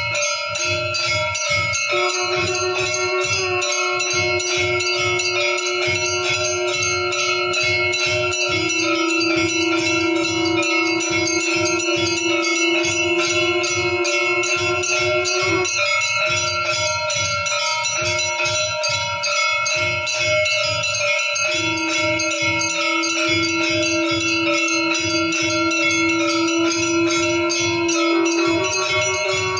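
Temple bells and metal gongs struck rapidly and without a break for the aarti, with a steady held tone sounding beneath them that drops out briefly twice in the middle.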